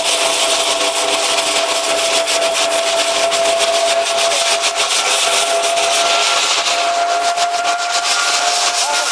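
Hazelnut thresher (patoz) running steadily with a constant hum, while hazelnuts in their husks are sucked up its corrugated suction hose, rattling continuously through it.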